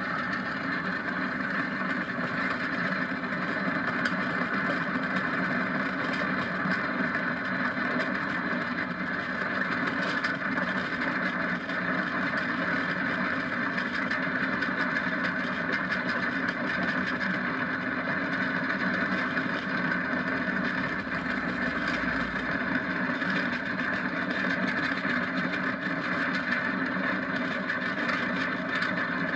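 Steady rush of wind and wheel-on-asphalt noise on board an engineless downhill gravity kart rolling fast down a paved road, an even, unbroken roar with no engine note.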